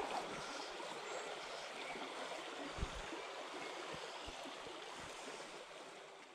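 Shallow, low-water stream running over stones, a steady rush of water, with a few soft low bumps in the middle; it fades out gradually near the end.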